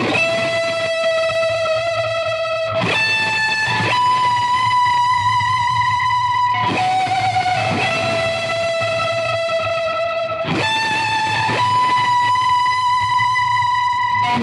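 Electric guitar through effects playing a song intro of long held, ringing notes in a repeating phrase, a long note then a short one about every four seconds, with no drums.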